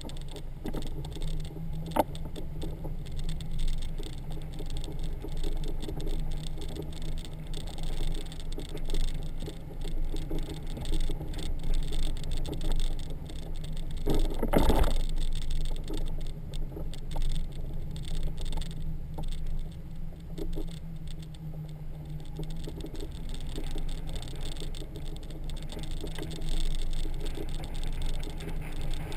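Honda Gold Wing motorcycle towing a trailer along a street, heard from the trailer: a steady low rumble of engine and road with the trailer and camera mount rattling. A sharp knock about two seconds in and a louder burst of noise about halfway through.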